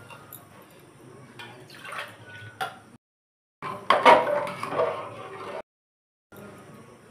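Water poured from a steel tumbler into a steel pressure cooker of cooked chana dal, then a ladle stirring and splashing it through, loudest about four seconds in, with a few sharp metal clinks on the pot. The sound comes in short snippets broken by brief silent cuts.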